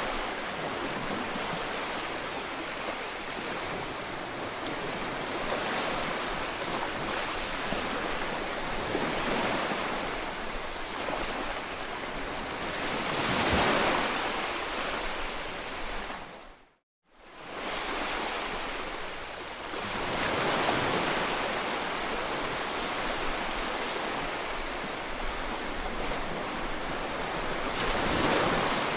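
Small waves washing onto a sandy beach: a steady rush of surf that swells louder every several seconds, with some wind on the microphone. The sound cuts out completely for a split second about two-thirds of the way through.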